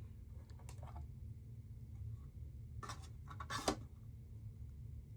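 Hands handling a model car's packaging: light scratching and rustling with a few soft clicks, about a second in and again around three seconds in, over a steady low room hum.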